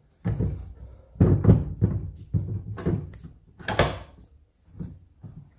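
Metal clunks and knocks as a BMW limited-slip differential is set into a bench vise by its drive flange and the vise is tightened: about six separate knocks, the sharpest a clank a little under four seconds in.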